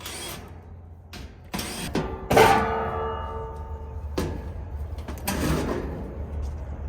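Sheet-metal parts of an air-conditioning condenser being handled: several clanks and scrapes, the loudest a clang about two and a half seconds in that rings briefly, over a steady low hum.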